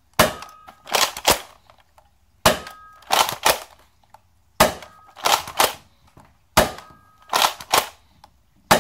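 Nerf Rival Kronos blaster with a K26 upgrade spring, fired five times about two seconds apart. Each shot is a sharp pop, followed by two quick clacks as the slide is primed back and forward for the next round.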